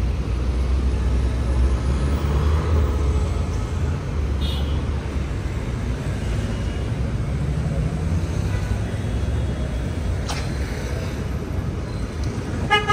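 Street traffic: a steady rumble of passing cars, with a car horn tooting briefly near the end.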